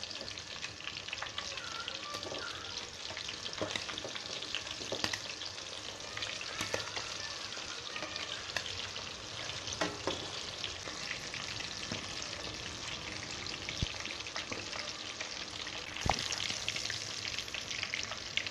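Whole quails deep-frying in hot oil, a steady sizzle, while a ladle turns them over with scattered clicks against the pan. The sizzle gets a little louder near the end.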